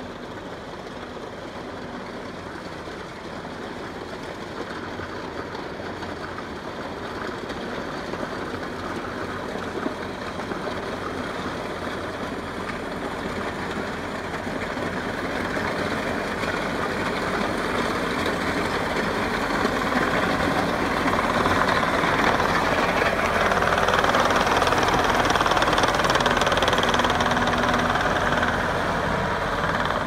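Kubota compact track loader running and travelling on a gravel road while pushing a Bobcat grader, its engine and track rattle steadily growing louder as it approaches.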